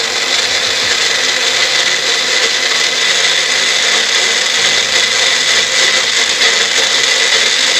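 Single-serve personal blender running steadily at one pitch, its motor whining as it grinds walnuts, almonds, pine nuts, green chillies, coriander, spring onion and cream into a very thick paste.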